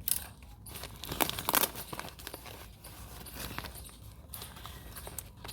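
Rustling and crinkling of plant packaging being handled, with short scratchy rustles and light clicks, busiest in the first two seconds.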